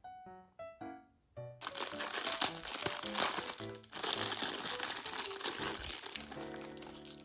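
Plastic wrapping crinkling and rustling as it is handled and opened, loud and dense, starting under two seconds in and easing off near the end, over light music with separate pitched notes.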